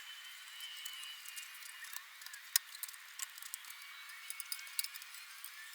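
Quiet, scattered small clicks and ticks of hands handling tape while the skim bike's cut edges are taped up.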